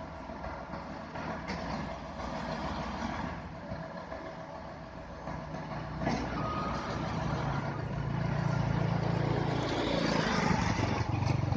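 Concrete truck's diesel engine running steadily, then revving up and getting louder about seven seconds in.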